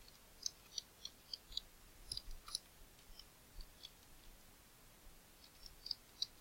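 Faint, sharp clicks of a computer mouse in two clusters: a quick run of clicks in the first two and a half seconds and another run near the end.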